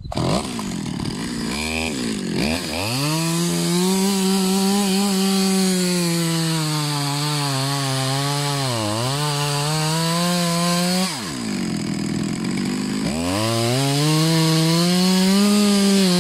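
Stihl top-handle pruning chainsaw's two-stroke engine revving up and cutting crosswise through a log, its pitch sagging under load about halfway through the cut. It eases off about two-thirds of the way in, then revs up again for a second cut.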